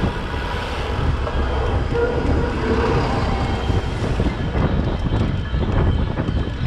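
Street traffic heard up close from a moving bicycle: bus and car engines running alongside, with heavy wind rumble on the microphone.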